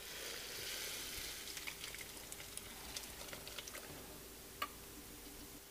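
Hot chicken-and-rice broth poured from a stainless steel stockpot into a casserole pot: a soft rush of pouring liquid at first, then scattered light clicks and splatters as the last of it slides out, with one sharper click near the end.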